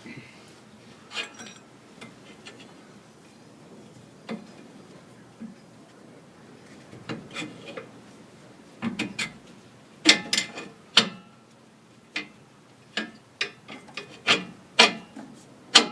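Metal suspension parts being handled by hand during a rear lowering-block install: scattered sharp clicks and clanks, sparse at first and coming faster and louder in the second half.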